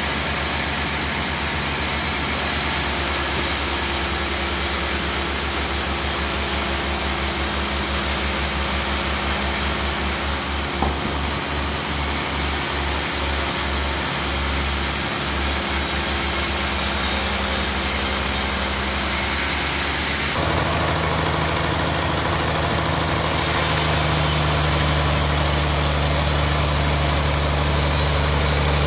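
Bandsaw sawmill running steadily, its blade finishing a cut through a large log; about twenty seconds in the machine's hum turns deeper and a little louder.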